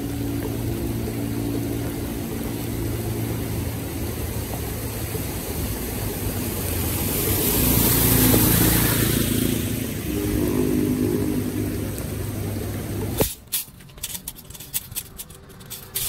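A motor vehicle's engine running steadily, swelling louder about halfway through. After a cut near the end it gives way to a quick series of sharp clicks and knocks.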